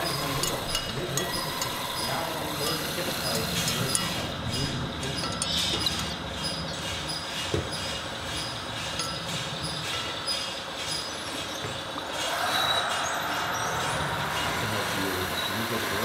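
Radio-controlled model trucks and construction machines at work: a steady mix of small-motor whine and light clicking, with a whine of several tones rising about twelve seconds in.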